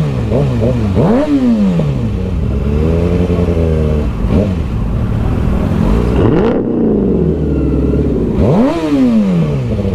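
Sport motorcycle engine revving: a few quick throttle blips near the start, then revs that rise and fall several times as the bike pulls away at walking pace, over a steady low rumble.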